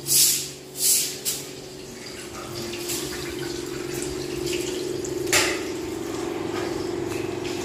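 Water running steadily, as from a tap or pipe filling a vessel, with a wavering hum beneath it. It is preceded by a couple of rhythmic swishing strokes in the first second and a half, and a single sharp clack comes about five seconds in.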